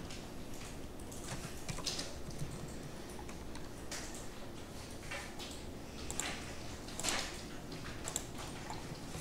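Scattered clicks of a computer mouse and keyboard keys, several seconds apart and the loudest about seven seconds in, over a steady low hum.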